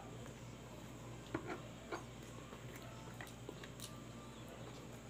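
Faint chewing and wet mouth clicks of a man eating raw pig-intestine kilawin, a few small clicks standing out over a steady low hum.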